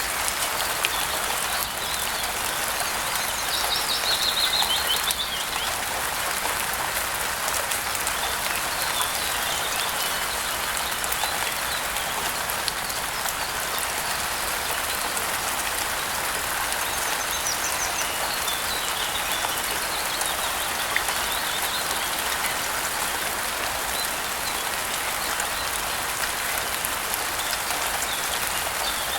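Steady rain falling, with a few faint bird chirps about four seconds in and again past the middle.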